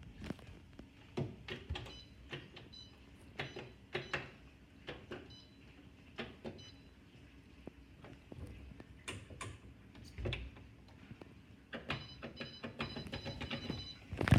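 Irregular clicks and knocks from an Electrolux Ecologic 12 kg washing machine being handled, with short high electronic beeps now and then, more of them near the end, as its control panel is pressed.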